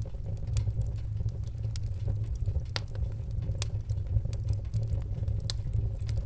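Fire burning: a steady low rumble with irregular sharp crackles and pops.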